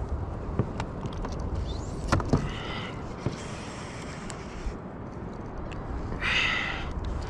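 Wind rumbling on the microphone, with a few sharp knocks of rod and gear against a fishing kayak as a hooked shark is played on a spinning rod. Two short buzzy bursts come about two and a half and six seconds in; the second is the loudest.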